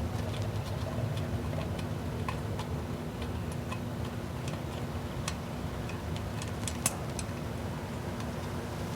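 Scattered light metallic clicks and ticks of a screwdriver working the screws of a floodlight fixture's cover plate, one sharper click about seven seconds in, over a steady low hum.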